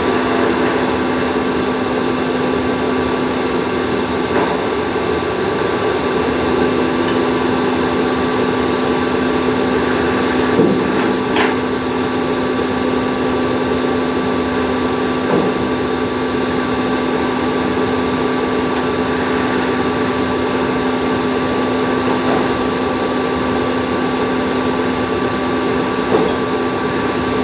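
CNC machine running with a steady mechanical hum, a constant low tone and a fainter higher whine. A few light clicks sound, about ten and fifteen seconds in.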